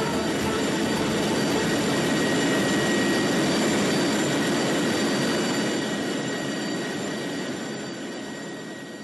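A loud, steady rumbling roar like a passing train or jet, a staged reveal sound effect played over the hall's speakers, fading away over the last three seconds or so.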